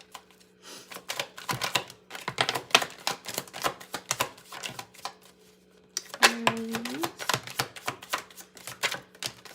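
A deck of tarot cards being shuffled by hand, making rapid, irregular clicks and flicks as the cards snap against each other. There is a short pause, then a louder run of shuffling about six seconds in, when cards fly out of the deck.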